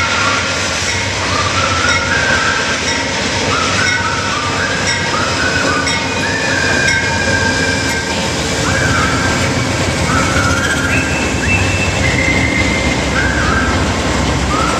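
Amtrak passenger train pulling into a station and braking to a stop. A steady low rumble runs under repeated short high squeals from the wheels and brakes, about one a second, each one stepping up in pitch.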